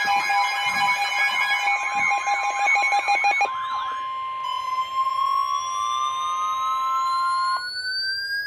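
Emergency alert tones layered together: steady electronic tones and a fast warbling tone until about three and a half seconds in. Then a single steady tone holds and cuts off suddenly near the end, while another tone rises slowly in pitch from about four seconds in.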